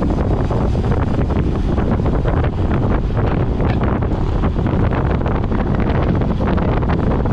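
Wind buffeting the microphone of a camera on a moving road bike: a loud, steady rush of noise, heaviest in the low end.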